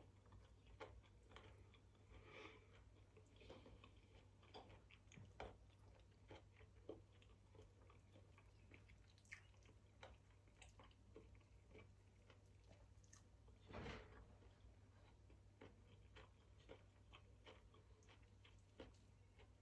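Faint close-up chewing and mouth sounds of a person eating: soft, irregular clicks and smacks, the loudest about two-thirds of the way through, over a low steady hum.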